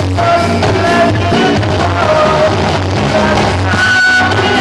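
Live band playing a pop song: drum kit and electric guitar with singers over a steady pulsing bass line.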